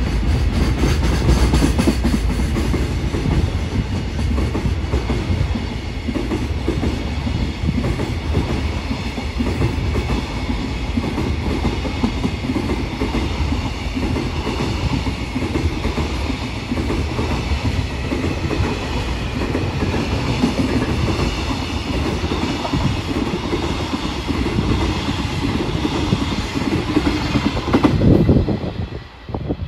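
Freight train of container flat wagons passing at speed: steady wheel rumble with a rhythmic clickety-clack of wheels over rail joints. Near the end the last wagon goes by and the sound drops away suddenly.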